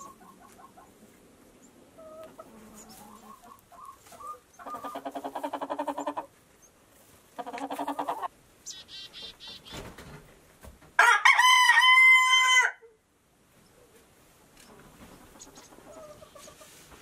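Chickens calling: hens cluck and give two loud drawn-out squawks, then a rooster crows once, loudly, about eleven seconds in.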